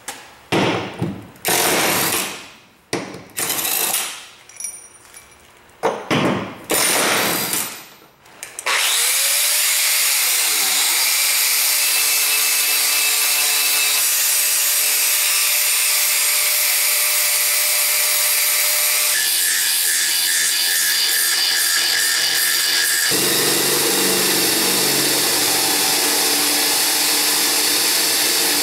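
A cordless power tool spins out bolts from the car's steel underbody in a series of short bursts. From about nine seconds in, a power grinder runs continuously on the body metal, clearing it for welding on reinforcement plates; its sound shifts twice later on.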